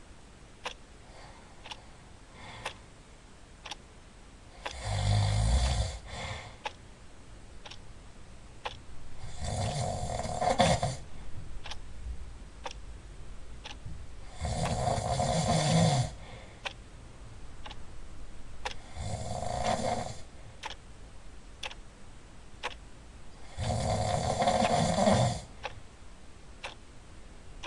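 Loud snoring: five long snores, one about every five seconds, each a low rasping rumble with a breathy hiss.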